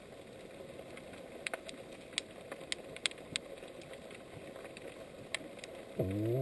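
Underwater recording: a steady low hiss with scattered sharp clicks. Near the end an unidentified low, pitched call with several harmonics sets in, sweeping quickly upward and then holding. The researchers cannot yet tell whether it comes from a marine mammal or from fish.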